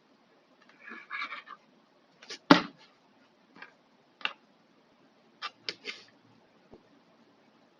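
Hand-tool and plastic-part handling noises: a scratchy rattle about a second in, then a series of sharp clicks and knocks, the loudest about two and a half seconds in, as the small trimmer's parts and battery are worked loose.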